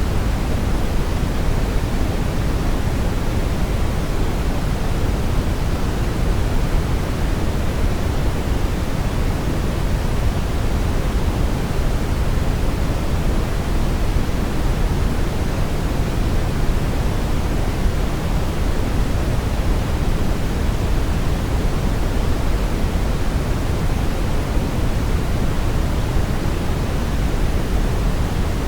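Synthetic brown noise: a steady, unchanging low hiss, strongest in the bass and fading off towards the treble.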